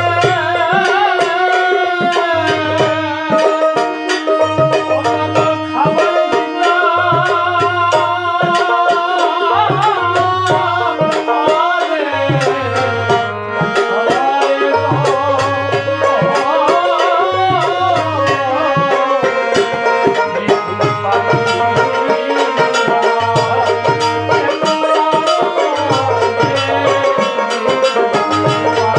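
Bengali Bijoy geeti devotional folk music: a wavering, ornamented melody over a hand drum beating a steady repeating rhythm of low strokes.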